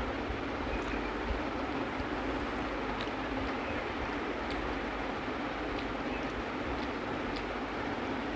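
Steady background hiss, even and unchanging, with faint scattered clicks of hand-eating: chewing and fingers mixing rice on a banana leaf.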